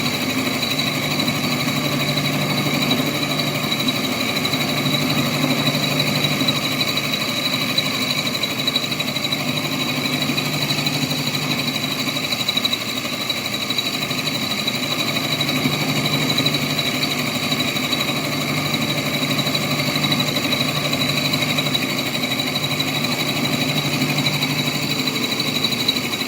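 Atlas metal lathe running with an end mill in its spindle, taking a milling pass through the workpiece: a steady machine drone with a constant high whine.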